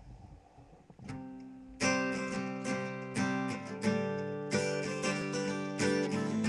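Acoustic guitar: a single plucked note about a second in, then chords strummed every half second or so, each ringing out before the next.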